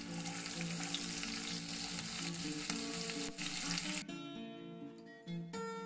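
Chopped onions sizzling as they drop into hot oil in a kadhai with green chillies and curry leaves. About four seconds in the sizzling cuts off suddenly, leaving background acoustic guitar music.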